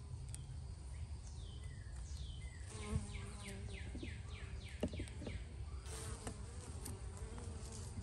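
A honeybee colony buzzing in a steady low hum around a frame lifted from an opened hive, the bees disturbed by the inspection. A quick run of high falling chirps comes through about three seconds in.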